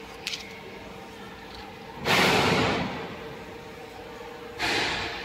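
Two short bursts of compressed-air hiss, the first about two seconds in and lasting about a second, the second shorter near the end, over a steady machine hum, with a light click just after the start.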